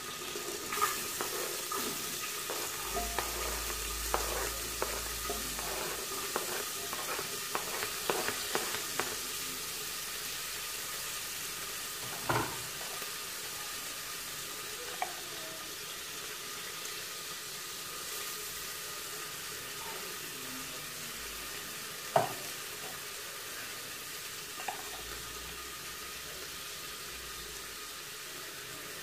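Steady sizzling hiss of food cooking on the stove. Over it come light clinks of a metal spoon against a salt container during the first ten seconds or so, then two sharper knocks, about midway and about three quarters through.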